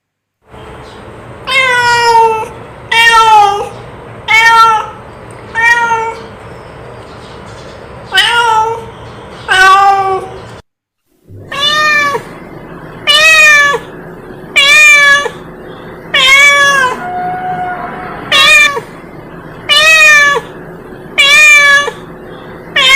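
Domestic cat meowing over and over, about one meow every second and a half, with a brief silent break just before halfway.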